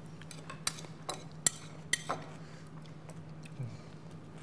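Eating utensils clinking against dishes on a table: about five sharp clinks in the first two seconds, over a steady low hum.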